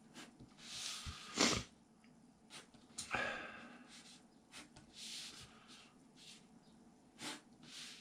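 Short nasal sniffs, the loudest about a second and a half in and another about three seconds in, amid soft strokes of a fine-tip pen drawing lines on paper.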